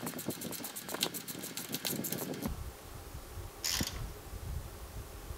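A ratchet wrench clicking quickly, about ten clicks a second, as a nut is run down onto an electric-fan mounting bolt. It stops about halfway through, and low handling noise follows with one short rustle.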